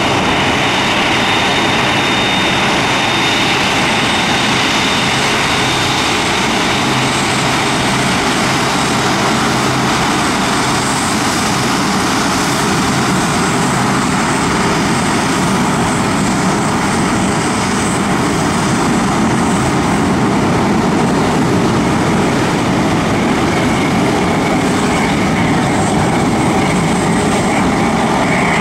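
Boeing 747-8F's four GEnx turbofan engines running at taxi power as the freighter rolls slowly past. A steady, loud jet rumble with a thin high whine over it.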